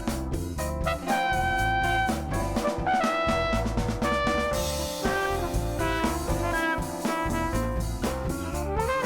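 Background music: upbeat jazz with brass lead over a drum kit.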